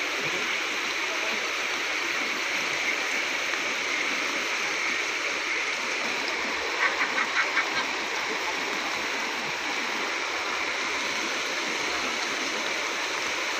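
Floodwater rushing steadily, a continuous even roar of moving water. About seven seconds in, a quick run of six short, sharp sounds rises briefly above it.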